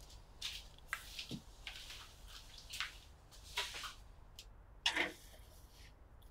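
Faint kitchen handling sounds: a few soft knocks and brushes as a sheet pan of scones is carried to an open oven and set on the rack, with the loudest knock about five seconds in.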